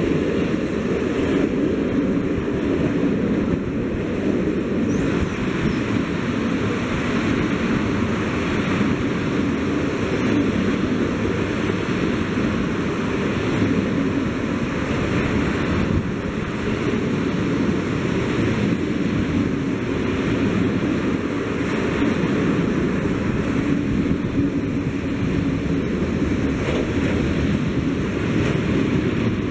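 Freight train of tank and grain hopper wagons rolling past close by: a steady, loud rumble of steel wheels on the rails.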